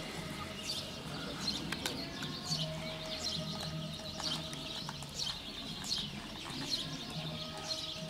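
Small birds chirping, a quick run of short, high chirps several times a second, over a faint steady low hum.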